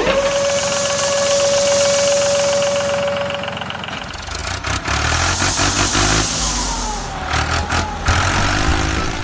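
A small vehicle engine running, with a steady high whine for the first few seconds and bursts of hissing.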